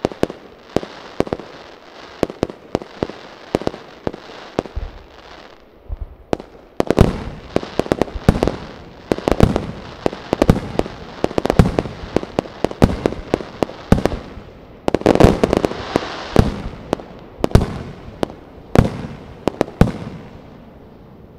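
Aerial firework shells bursting one after another, each a sharp bang with crackling between them. About six and a half seconds in the volley turns much denser and louder, with many bangs close together, then thins out near the end.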